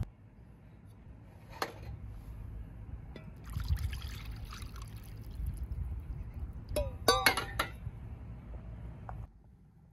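Water poured from a metal cooking pot into a porcelain bowl, splashing for a second or two. A few sharp ringing clinks follow about seven seconds in, as the pot and bowl are handled and set down.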